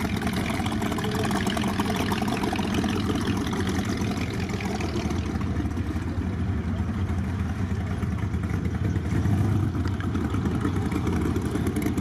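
A car engine idling steadily.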